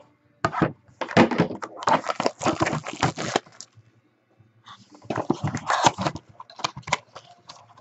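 Crackling and rustling of a cardboard mini box and the card pack inside being opened and handled, in two bursts with a short pause between them.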